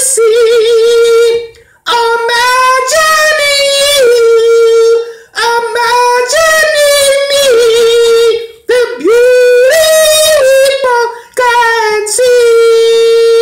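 A man singing unaccompanied in a high voice: long sustained notes with vibrato, in phrases of two to three seconds broken by short breaths. Near the end he holds one long, steady note.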